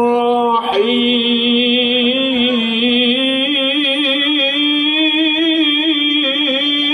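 A man reciting the Qur'an in melodic tilawah style into a microphone, drawing out the basmala in one long, ornamented phrase with wavering pitch, broken only by a short pause about a second in.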